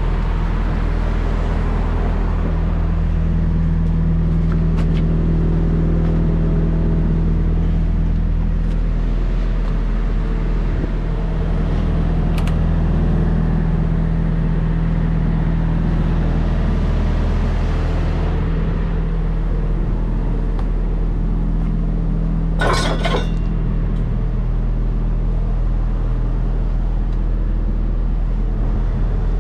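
Diesel engine idling steadily with a low, even hum. A short burst of metallic clinking comes about 23 seconds in.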